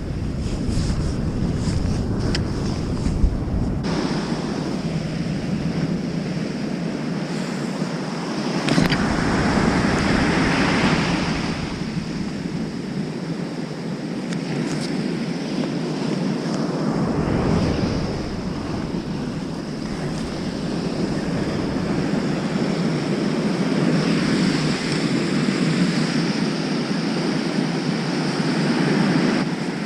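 Waves breaking and washing up a sandy beach in a continuous rush, in a high winter surf. The wash swells louder twice, about a third of the way in and near the end, with stretches of wind rumbling on the microphone.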